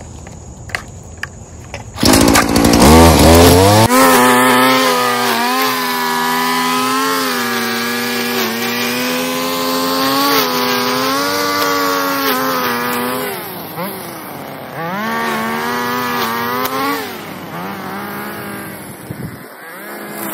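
Stihl string trimmer's two-stroke engine starting up about two seconds in and climbing to a high, steady whine, then running at high throttle for edging, its pitch dipping and rising as the throttle is eased and squeezed. It drops off near the end.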